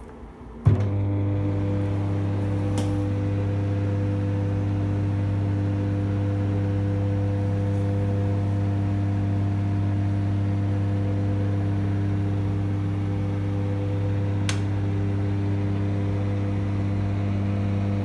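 Electrolux EMG23K38GB microwave oven switching on with a thump under a second in, just after its timer dial is turned, then running with a steady, loud low hum. Two light clicks come through the hum, one a few seconds in and one near the end.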